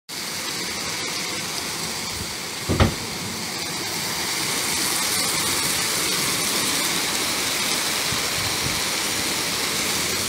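Heavy downpour hissing steadily, growing a little louder after a few seconds, with one short thump about three seconds in.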